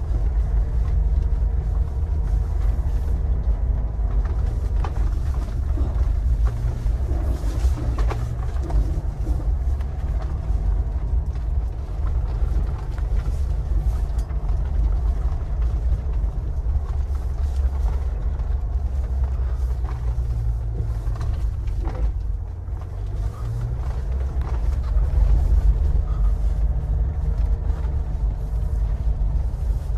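Mahindra Thar 4x4 climbing a snowy road in high range, its engine running steadily under load as a low drone, with a few brief knocks.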